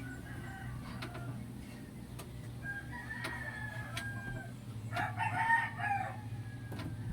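Domestic fowl calling: a long, thin, slightly falling call about a third of the way in, then a louder, rougher call near the end. A steady low hum runs underneath, with a few faint clicks.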